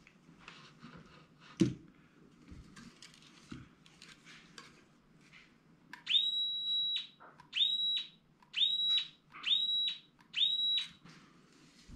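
Small electric motor in a homemade tennis ball machine's swivel mount, run five times in quick succession from about halfway in: each run is a whine that climbs quickly to a high steady pitch, holds briefly, then stops. Before it, light clicks of metal parts and wires being handled, with one sharp knock.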